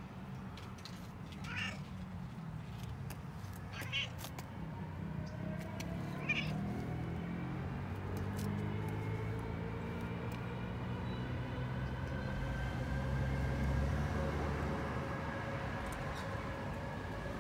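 Domestic cat giving three short meows, about a second and a half, four and six seconds in. Under and after them a low, steady drone with slowly gliding pitch swells and fades over the second half.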